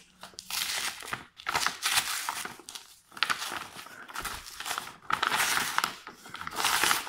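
Brown paper mailing envelope being opened by hand: silver tape peeled back and the paper crinkling and tearing, in about five bouts of rustling with short pauses between them.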